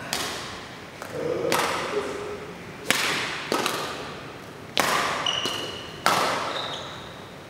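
Badminton rackets striking a shuttlecock in a doubles rally: about five sharp hits, one every second and a half or so, each ringing out in the large hall. Between the later hits come a couple of short squeaks from court shoes.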